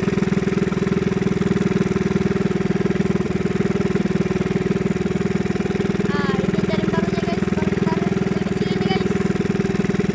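Small fishing boat's engine running steadily at an even speed. Faint voices come through over it about halfway through and again near the end.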